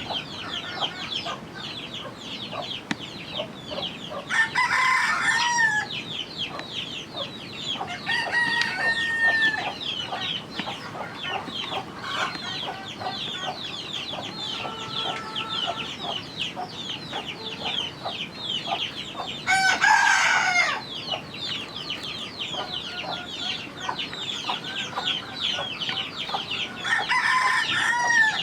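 Chicken flock with roosters crowing four times, each crow about a second and a half long, over a constant chatter of high chirps and clucks.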